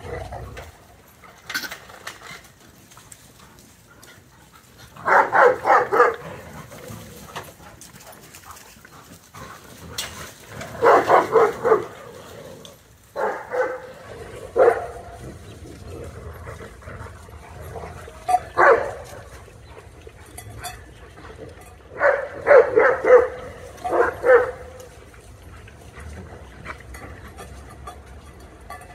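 Dogs barking in quick volleys of several barks each, about five volleys spread out with pauses between, during rough play.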